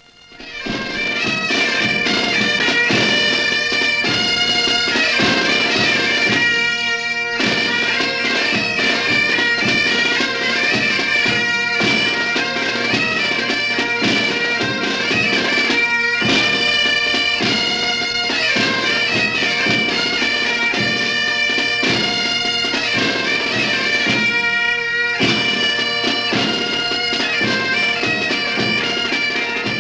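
Breton folk tune on bagpipe and bombarde: a reedy melody over a steady bagpipe drone, fading in about a second in.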